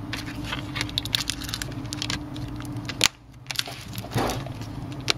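Quick plastic clicks and taps from a Samsung Galaxy S5 being handled and its back cover pressed and snapped into place, with a sharper click about three seconds in. A steady low hum sits behind the clicks and drops out after that sharper click.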